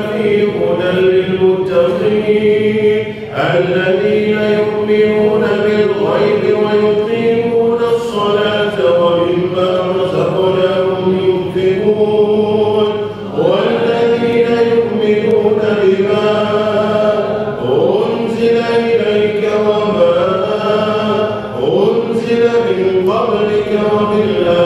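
A man chanting Arabic devotional dhikr into a microphone in long, held melodic phrases, several of them opening with a rising slide in pitch.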